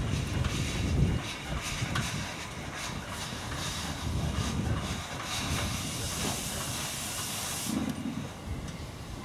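Robert Stephenson and Hawthorns 0-6-0 tank steam locomotive no. 7151 rolling slowly past, a few heavy exhaust beats at the start giving way to a steady hiss of steam. From about five seconds in a louder, higher hiss joins, then cuts off suddenly near the end.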